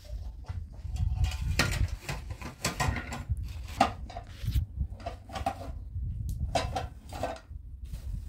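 Plastic bags rustling and crinkling as things are rummaged through by hand, with light clinks and knocks of the items inside.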